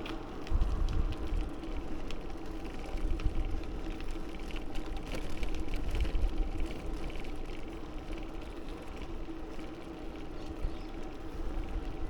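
Riding a bicycle: wind buffets the microphone in uneven gusts, over a steady hum.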